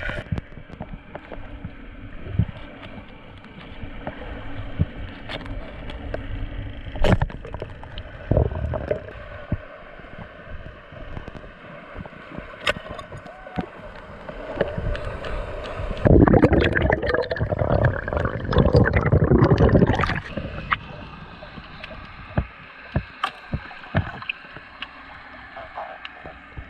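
Muffled underwater noise heard through a camera's waterproof housing, with scattered sharp clicks and knocks. A louder rush of noise lasts about four seconds in the middle.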